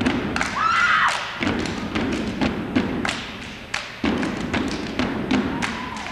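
Step team stomping and clapping together on a hardwood gym floor: a quick run of sharp percussive hits over crowd noise.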